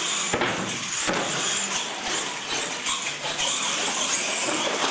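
Two radio-controlled monster trucks racing flat out across a concrete floor: a steady high motor whine with tyre noise, and a couple of sharp knocks in the first second as they hit the track.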